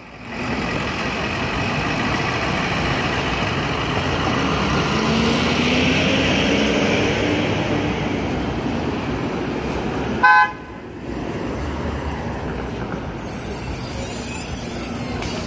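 City street traffic running steadily, with one short, loud vehicle horn toot about ten seconds in.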